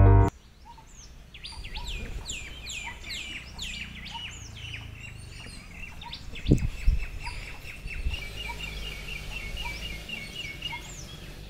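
Several birds singing and calling: many quick chirps sweeping down in pitch, then a fast, even run of chirps near the end, over a low rumbling background. Two dull thumps about half a second apart a little past the middle.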